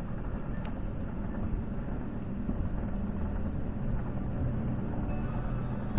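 Steady road and engine noise heard from inside a car's cabin while driving along a highway.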